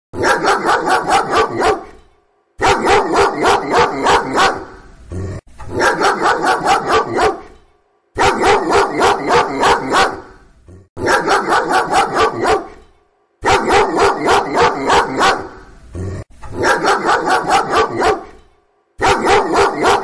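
Dog barking in quick runs of about seven barks each, the runs coming one after another with short pauses between them.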